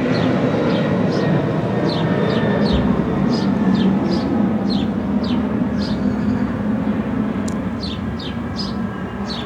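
Short falling bird chirps, about two a second, over a steady low rumble.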